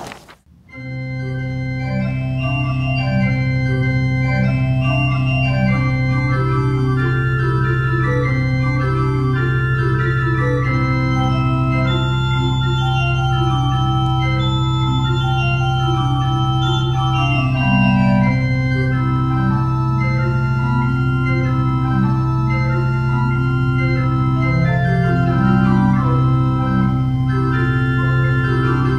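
Pipe organ playing the postlude, starting about half a second in: a low note held throughout under moving chords and melody lines.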